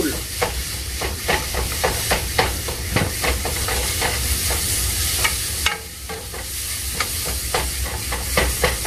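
Wooden spoon scraping and knocking against a metal pot in quick repeated strokes, about two or three a second, as flour is stirred into melted butter to cook a roux for béchamel. A steady sizzle from the butter and flour runs underneath and dips briefly about six seconds in.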